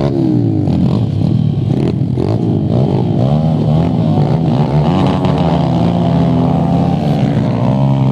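Several small pit bike engines revving together, their pitches rising and falling and overlapping as the bikes accelerate away across rough grass.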